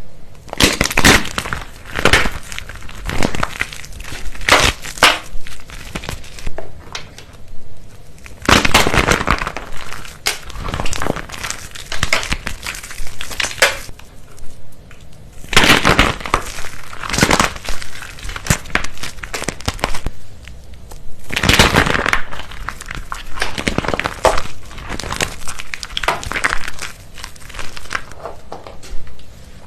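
Crisp, dried soap and starch being crushed, giving dense crackling and crunching in repeated bouts a few seconds long, with short quieter pauses between them.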